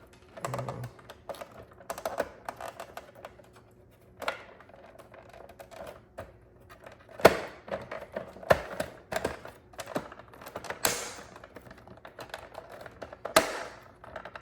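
Irregular hard plastic clicks, knocks and scrapes of a Keurig K-Duo Essentials coffee maker's cover being pushed back into place while the handle is worked, with sharper knocks about seven seconds in and near the end.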